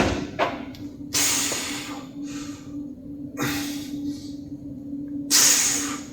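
A sharp knock at the start, then three forceful breaths out about two seconds apart from a lifter straining through barbell press reps, over a steady low hum.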